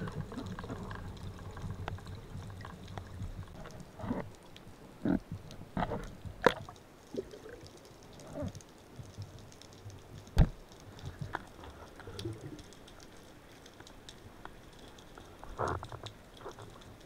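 Water movement and bubbling heard underwater around a diving spearfisher, muffled. A scattered series of sharp knocks runs through it, the loudest about ten seconds in.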